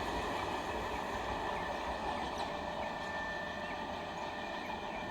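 Train running on the rails, a steady rumble that slowly gets quieter.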